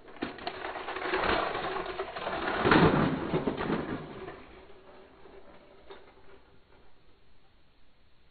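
Thomas toy engine rattling along a hard plastic playset track and loop, a fast clatter that builds to its loudest about three seconds in and dies away by four. A single click follows near six seconds.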